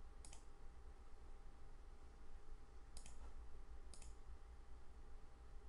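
Three faint computer mouse clicks: one just after the start, then two about a second apart past the middle, over a faint low hum.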